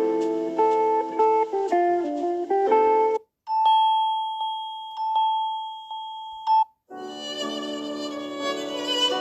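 Samsung Galaxy A23 5G ringtones and notification tones played one after another: a short melodic tune, then after a brief gap a single bell-like tone struck again several times, then a fuller tune starting near the end.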